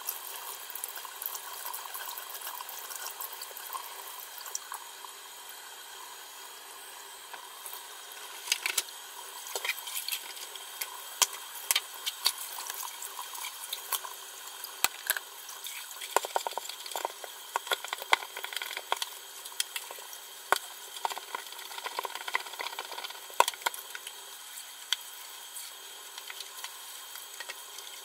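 Kitchen tap running steadily into a stainless steel sink while the plastic parts of a cat water fountain are rinsed under it. From about eight seconds in come frequent knocks and clatters as the plastic pieces are handled and scrubbed with a brush.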